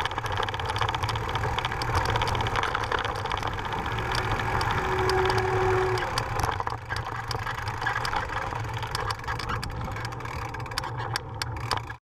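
29er mountain bike rolling fast over a loose gravel trail: steady tyre crunch and wind rumble on a GoPro microphone, with bike rattles and a brief steady squeal about halfway through. The sound cuts off suddenly near the end.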